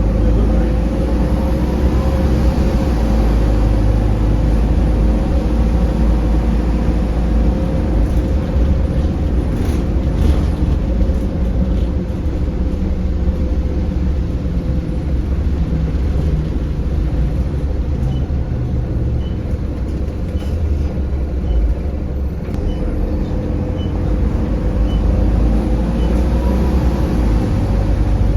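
Optare Solo M900 midibus running under way, heard from inside: a steady engine and drivetrain drone with a heavy low rumble and road noise. In the second half there is a faint, regular tick about once a second.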